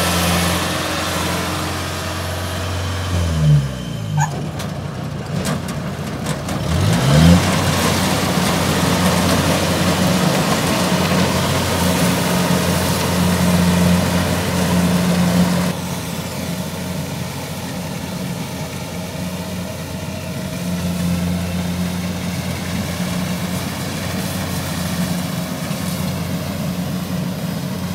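Kubota combine harvester's diesel engine running steadily under load while it cuts rice, with a steady hiss over the engine note. The engine pitch dips and rises between about three and seven seconds in, and the high hiss falls away suddenly about sixteen seconds in.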